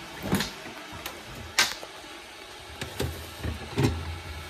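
A series of sharp knocks and clinks of kitchen things being handled while breakfast is made, about six in all, the loudest about a second and a half in. A low hum starts about three seconds in.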